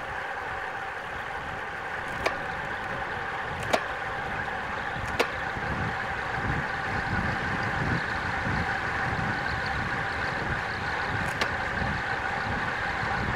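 Road bike at speed on a descent: wind rushing over the microphone and tyres on the road, with a steady whine underneath. The wind buffeting grows stronger from about halfway, and four sharp clicks come through.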